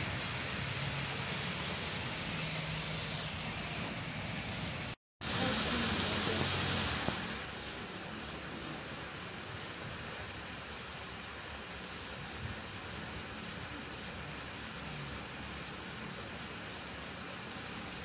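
Steady rushing of water pouring over a 25-foot waterfall into its plunge pool. The sound drops out for a moment about five seconds in, then comes back louder and hissier for about two seconds before settling to a steady rush.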